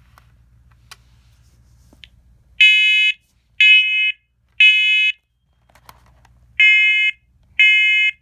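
First Alert PC900V combination smoke and carbon monoxide alarm sounding in test mode. Loud, high-pitched electronic beeps start about two and a half seconds in, coming in threes with a pause between groups. This is the temporal-three pattern that signals smoke.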